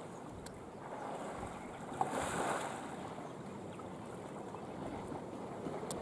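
Lake water sloshing and splashing as Sri Lankan elephants wrestle and surface in it, with a louder splash about two seconds in.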